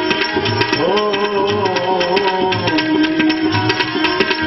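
Devotional bhajan music: tabla drumming under a held melody line that slides upward about a second in.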